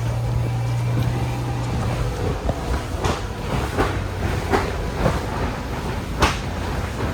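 Electric blower of an inflatable dome running with a steady low hum, joined about halfway through by a series of sharp thumps roughly every three-quarters of a second.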